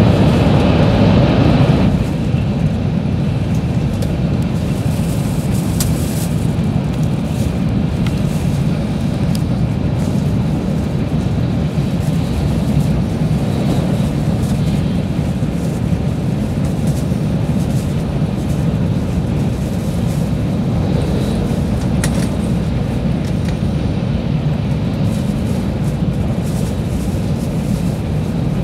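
Running noise heard inside a JR West 700 series Shinkansen car at speed: a steady low rumble with a hiss above it. It is louder at first inside a tunnel and drops about two seconds in as the train comes out, then stays even.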